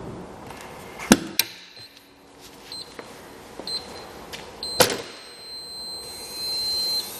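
Galaxy GS-102/GS-103 heat press clamped shut with two metallic clunks, a few short high beeps from its control panel, then another loud clunk and a long steady high beep as the 5-second timer runs out.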